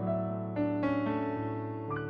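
Slow, gentle piano music: sustained notes and chords, a new note struck about every half second.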